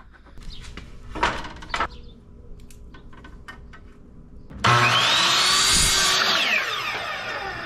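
Compact electric miter saw starting with a sudden whine and cutting through a 2x2 wooden board about four and a half seconds in, then its motor winding down with a falling whine after the cut. A few light knocks come before the saw starts.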